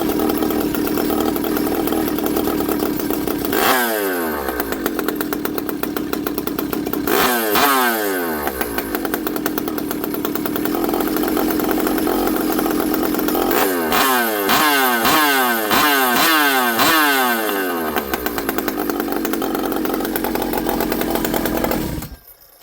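Stihl 064 two-stroke chainsaw idling, its throttle blipped once about 4 s in, again about 7 s in, then several quick blips in a row, before it is shut off near the end. The clutch is grabbing even at a low idle, which the owner takes as a clutch fault still to be checked.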